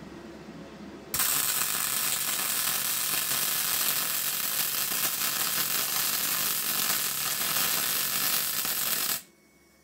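MIG welder arc running a continuous weld bead along a chamfered joint between steel angle iron and plate. The arc strikes suddenly about a second in, runs steadily and evenly, and cuts off abruptly shortly before the end.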